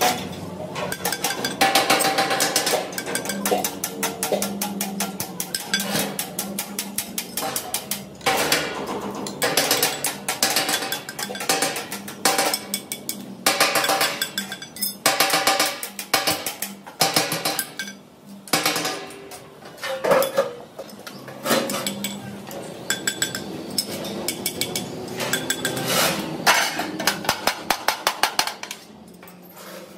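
Metal being hammered and clanked during fabrication of a wheat grinding machine: irregular runs of sharp, ringing blows, sometimes several a second, easing off in the last second.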